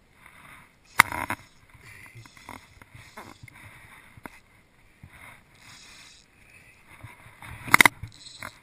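Handling noises in a small open boat: gear rustling and shifting, with a sharp knock against the boat about a second in and a quick rattle of knocks near the end as a folding boat seat is moved.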